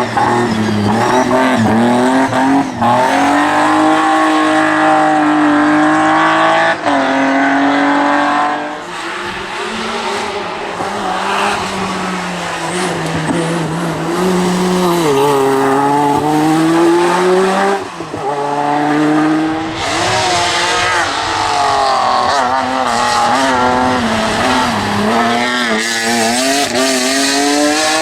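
Hill-climb racing car engines at full throttle, revving up and dropping back through quick gear changes, one car after another. The sound changes abruptly several times as one car gives way to the next.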